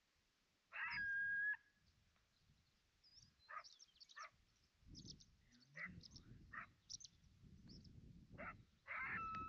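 Coyote-like whining calls: a held, steady-pitched whine about a second in and another near the end, with short yips between them.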